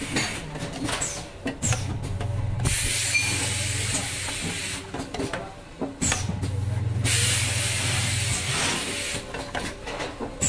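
Automatic sauce cup filling and sealing machine running: pneumatic cylinders knock as they move and vent compressed air in two long hisses, about 3 and 7 seconds in, over a steady low hum.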